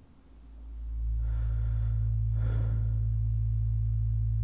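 A deep, steady low drone fades in over about the first second and then holds, with two soft breaths over it, about a second and a half in and again a second later.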